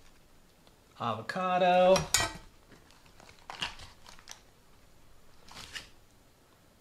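A man says "avocado", then a few light clicks and knocks of kitchen dishes and utensils being handled, with a short soft rustle a little before the end.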